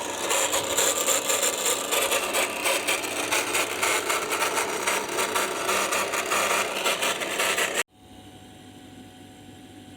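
Drill press converted to a wood lathe running while a tool cuts into the spinning wood, a dense scraping noise. It stops abruptly about eight seconds in, leaving a low steady hum.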